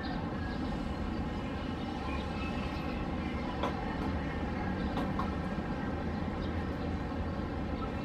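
Distant city traffic: a steady low rumble, with a few faint short clicks in the middle.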